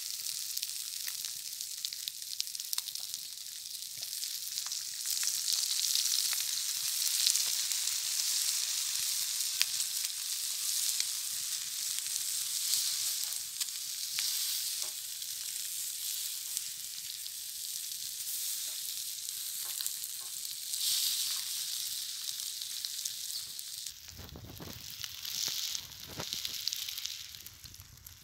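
Masala-coated boiled eggs frying in oil on a hot griddle over a wood fire: a steady sizzle with small crackling pops. About four seconds from the end the sizzle falls away and a low rumble takes over.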